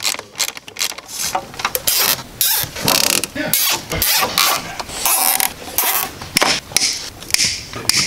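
Quick runs of ratcheting clicks: a hand socket ratchet turning in the engine cover's small bolts, then a plastic zip tie being pulled tight around a wiring harness.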